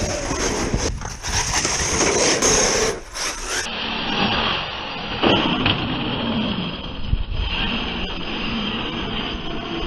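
Electric brushless motor of an ARRMA Outcast 8S RC truck (980kv setup) whining up and down in pitch as it speeds up and slows, over the rattle of the truck running.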